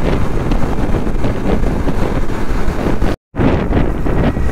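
Wind rushing over the microphone of a motorcycle on the move, with the bike's engine running underneath. The sound cuts out completely for an instant about three seconds in.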